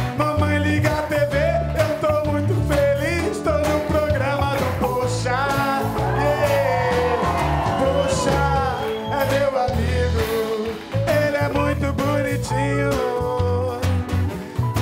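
Live band playing an upbeat song, led by strummed acoustic guitar over a repeating bass line, with a melody line that slides and bends in pitch.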